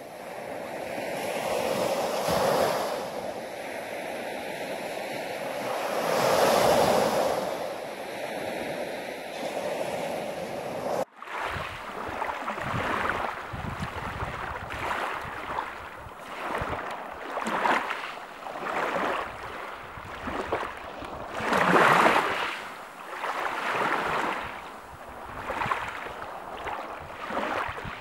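Small waves breaking and washing up the shore, with two slow swells of surf in the first part. After an abrupt cut about 11 s in, quicker, shorter splashes of small waves lapping on a pebbly shore, the loudest near the 22-second mark.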